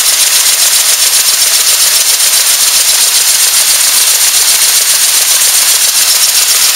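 BABY MK8 cigarette making machine running at speed: a loud, steady, hissing mechanical whir with a fine, fast rattle that does not change.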